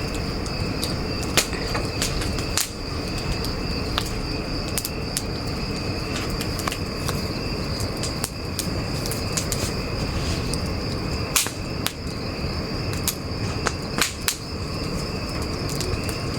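Firewood bonfire crackling, with sharp pops at irregular intervals, a few of them louder, over a steady high chirring of crickets.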